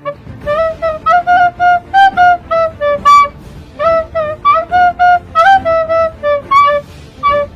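Music: a hip-hop beat intro with a flute melody of short, bouncing notes, the bass and drums coming in at the start.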